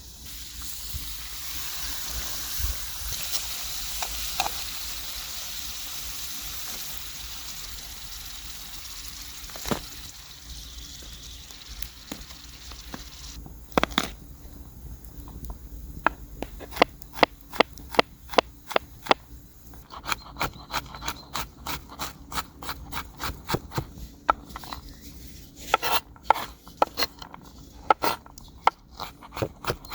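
Potato wedges sizzling in hot oil in a cast iron skillet, a steady hiss that stops about halfway through. After that comes a run of sharp clicks and taps, at times two or three a second.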